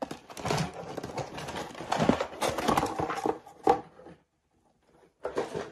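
Cardboard box and packing material rustling and scraping as a boxed unit is handled and lifted out, with scattered sharp knocks. The rustling stops about four seconds in, and a few light knocks come near the end.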